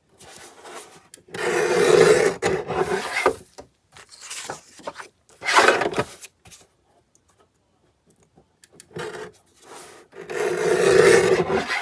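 A paper trimmer cutting scrapbook paper: the blade scrapes along its track in several passes of a second or two each.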